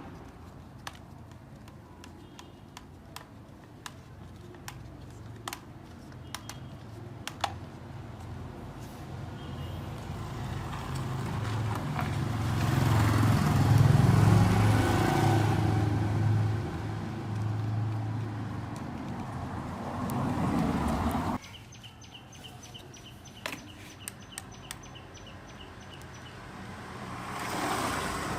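Light clicks of parts being handled, then a motor vehicle passing close by: a low engine hum with road noise that swells and fades over several seconds and stops abruptly after about 21 s. A smaller swell returns near the end.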